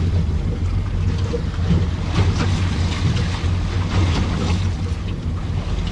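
Wind buffeting the microphone and sea water washing against a small boat's hull, over a steady low hum. A few brief rushes of water or wind come between about two and four and a half seconds in.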